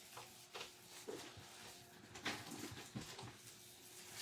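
Faint scuffing and soft taps of a foam ink-blending tool rubbed and dabbed over cardstock, blending out ink, with the sharpest tap a little past two seconds in. A faint steady hum runs underneath.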